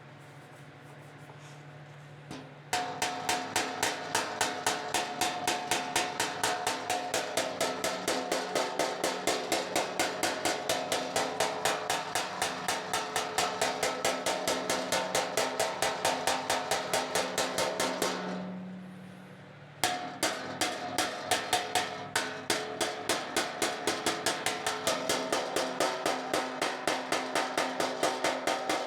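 Body hammer striking the fender's sheet metal against a dolly in a fast, even rhythm of about three blows a second, the panel ringing with each blow. The hammer is left to bounce lightly so the blows work the grooved metal back out. The blows start about three seconds in, pause for about two seconds near the end, then resume.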